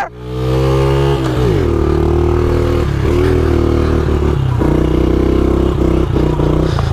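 Honda CRF70F pit bike's small four-stroke single engine running under throttle while being ridden. The pitch falls over the first second or so, then holds fairly steady with small dips.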